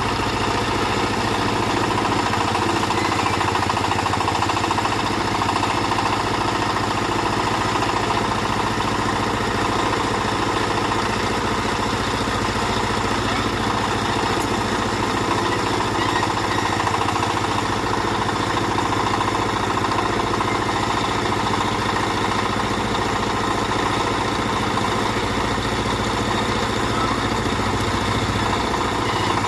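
Small backhoe's engine running steadily at an even speed while it works.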